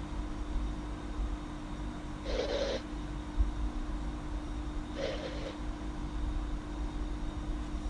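A sleeping girl snoring: two short, breathy snores about two and a half seconds apart, with a steady low hum behind.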